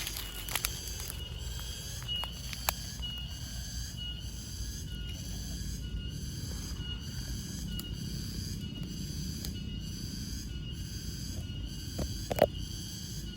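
Crickets chirping outdoors in a steady pulse, repeating about twice a second, over a low steady rumble. A few sharp clicks occur, the loudest near the end.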